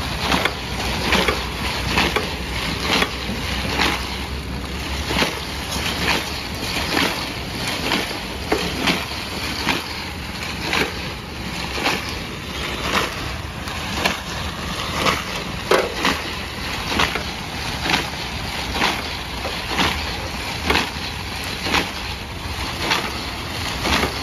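Frozen fruit ice cream being scraped off a spinning ice cream roller drum: a steady scraping rasp with a sharp stroke coming evenly about once a second.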